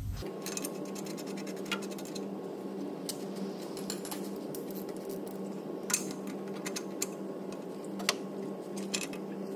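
A ratchet clicking in quick runs, then a few single sharp clicks, as a new NOx sensor is wound into the exhaust pipe and tightened with a crow's-foot spanner on a long ratchet. A steady low hum runs underneath.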